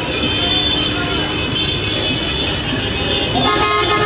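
Several car horns honking together in a street celebration, held and overlapping over a noisy crowd-and-traffic background. Another, lower horn comes in about three and a half seconds in.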